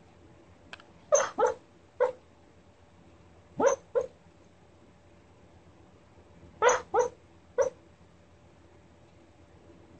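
Rat terrier barking in its sleep while dreaming: about eight short barks in three quick runs, with silence between.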